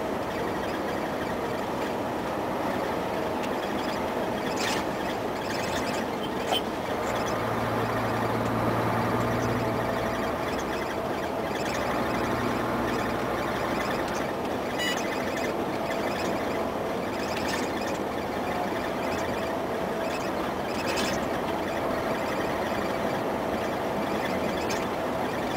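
Mercedes-Benz Actros 1848 truck heard from inside the cab while driving: steady V6 diesel engine and road noise. A deeper engine drone comes in from about seven to fourteen seconds in, and there are a few light clicks now and then.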